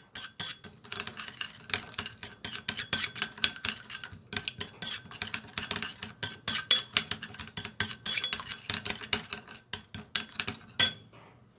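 A spoon stirring sauce in a small ceramic bowl: quick, continuous clinks and scrapes against the bowl's sides, with one louder clink near the end before the stirring stops.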